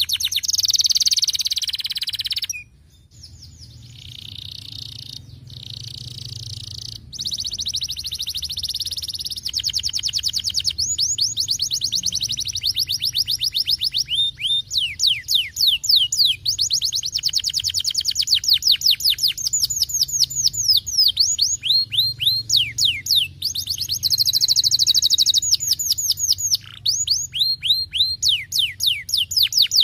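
Domestic canary singing long, fast trills of rapidly repeated high falling notes, broken by short pauses twice.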